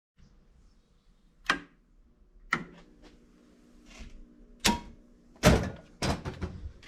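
A series of sharp knocks and clunks, single hits about a second apart and a quick cluster of smaller ones near the end.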